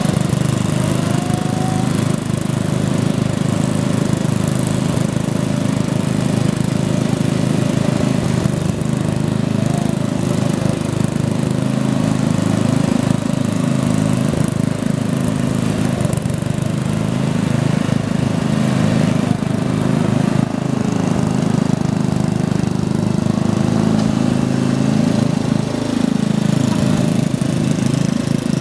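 Two garden tractor engines, a Gilson 11 hp and a Turf Trac 10/38 10 hp, running together at a steady throttle, their two engine notes drifting slightly against each other.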